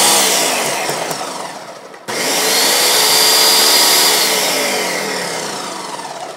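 Ninja blender motor running at high speed, puréeing a chunky onion and soy-sauce marinade. It slows and fades, starts again abruptly just after two seconds in, then winds down toward the end.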